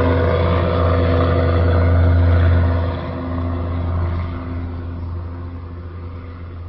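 Small aircraft's engine droning steadily overhead, then fading away as it flies off, from about three seconds in.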